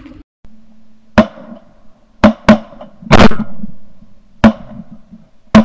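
A volley of shotgun blasts from several hunters firing at a flock of ducks: about six sharp, loud shots, unevenly spaced over some four and a half seconds.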